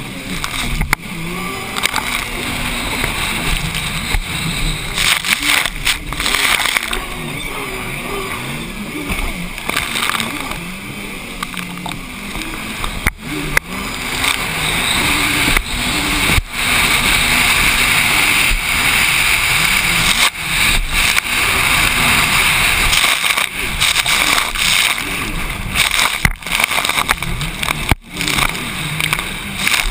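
Racing jet ski engine running hard, its pitch rising and falling as the throttle works over the chop, under a heavy rush of wind and spray on a helmet-mounted microphone. The sound dips out briefly several times.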